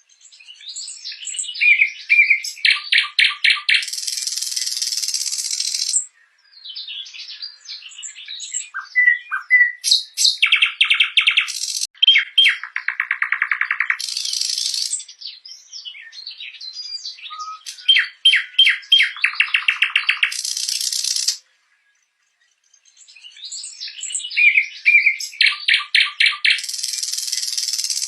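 Nightingale singing: phrases of fast repeated notes and trills with whistled notes between them, broken by short pauses.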